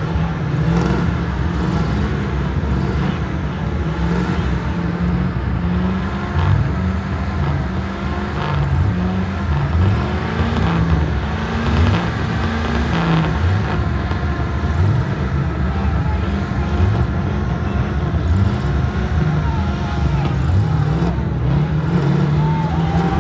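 Heavy off-road truck engines running under load, their pitch rising and falling unevenly as they rev.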